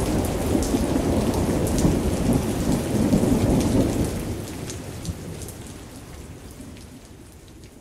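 Thunderstorm: a low rumble of thunder over steady rain. The thunder dies away after about four seconds and the whole sound fades out toward the end.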